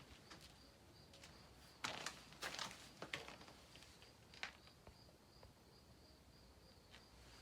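A few faint footsteps, mostly around two to three seconds in, over a quiet outdoor background with a faint, high, evenly pulsing chirp.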